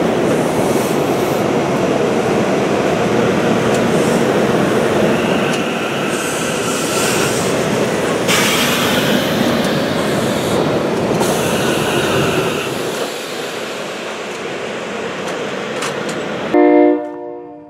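SEPTA Silverliner V electric multiple-unit commuter train departing and rolling past: a steady rumble of wheels on rail that eases off as the last car goes by. Near the end a brief horn blast sounds.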